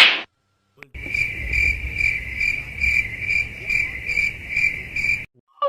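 Crickets chirping in an even pulsing rhythm, about two chirps a second, as in the stock 'crickets' meme sound effect; it starts about a second in and cuts off abruptly near the end. A loud short burst, the tail of the previous effect, sounds right at the start.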